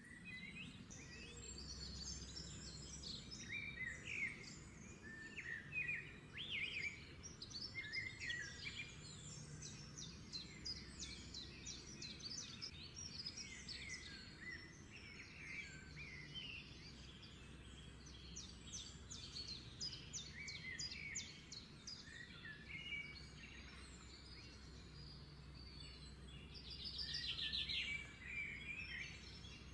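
Small songbirds chirping and twittering throughout, with a fast trill near the end, over a steady low hum.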